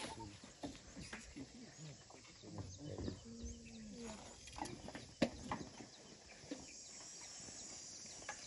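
Outdoor ambience of birds chirping, with scattered soft rustles, a short low call about three seconds in and a single sharp click about five seconds in. A steady high insect buzz sets in near the end.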